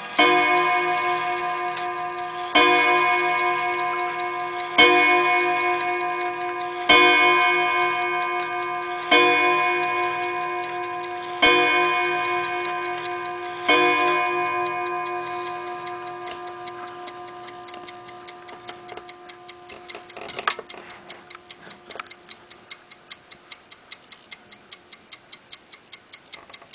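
1920 mantel clock striking on its gong rods: seven strikes about two seconds apart, each ringing and slowly dying away. As the last strike fades, the movement's fast, steady ticking comes through, with a single louder knock about twenty seconds in.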